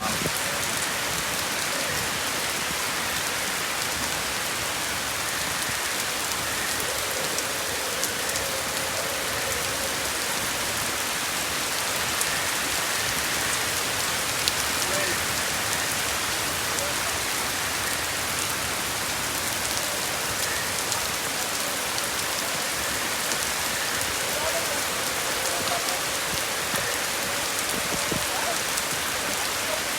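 Steady rain falling and pattering on surfaces, an even hiss with many small drop ticks.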